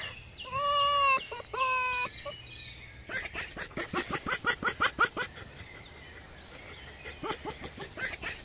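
Red fox vocalizing: two drawn-out high whines in the first two seconds, then long runs of rapid chattering cackles, about six a second, the sound known as a fox 'laughing'.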